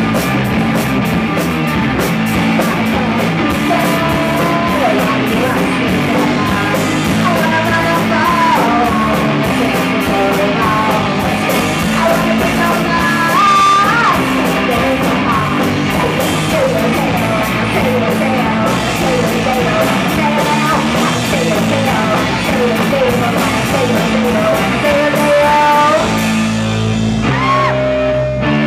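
Live rock band playing: a woman sings lead over electric guitar, electric bass and a drum kit with busy cymbals. Near the end the drums drop out, leaving the guitars and voice.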